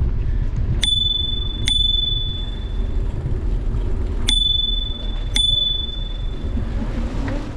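Bicycle bell rung four times in two pairs about three seconds apart, each strike a clear high ring that fades over about a second, over a steady low rumble from riding.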